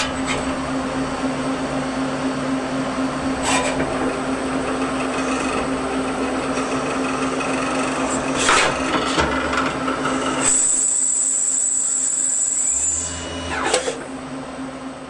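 Citizen K16 CNC lathe machining a brass part: a steady running hum with a few sharp clicks. About two thirds of the way in, the low rumble drops away and a high whine sets in.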